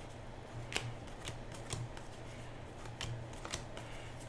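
Panini Hoops basketball trading cards being flipped through by hand, one after another: a string of light, sharp card flicks at an uneven pace, over a faint steady low hum.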